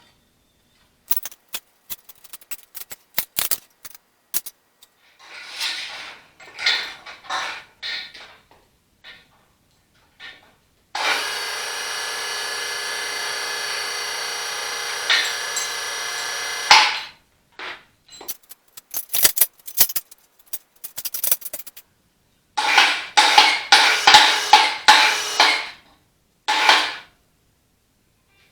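Tools at work on tractor parts during disassembly. Scattered metal clicks and short bursts at the start, then a power tool running steadily for about six seconds midway. More clicks follow, then a string of short loud power-tool bursts near the end.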